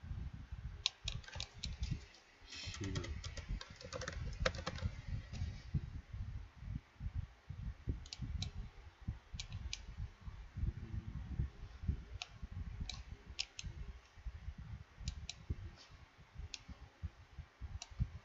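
Typing on a computer keyboard and clicking a mouse while editing text. A quick run of keystrokes comes in the first few seconds, then scattered single and paired clicks.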